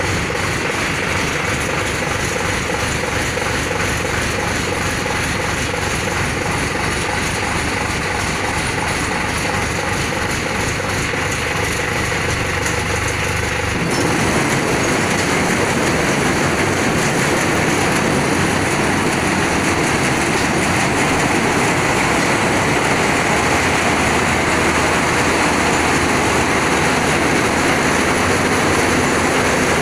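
Maxiter combine harvester running in place: a steady, dense mechanical din of engine and moving parts. About 14 seconds in it grows louder and fuller and holds there.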